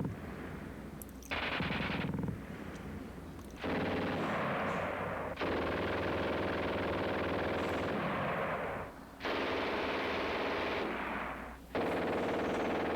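Machine gun firing several long bursts of rapid fire, each one to three seconds long, with short pauses between them.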